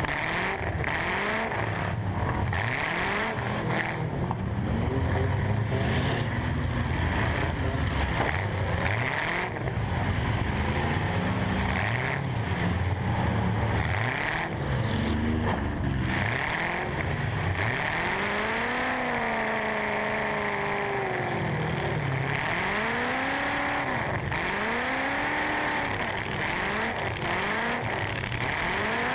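Eight-cylinder engine of a stock full-size truck revving up and down over and over in short bursts, heard from inside the cab, with the rattle and noise of the truck around it.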